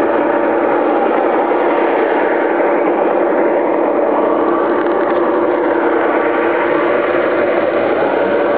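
1:29-scale Rio Grande model diesel locomotives running past, a steady mechanical hum with several held tones.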